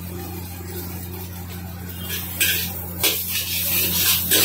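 Noodles sizzling in a hot steel wok over a gas range, over a steady low hum. From about two seconds in, the spatula scrapes and clanks against the wok in bursts as the noodles are tossed, each with a rush of louder sizzle.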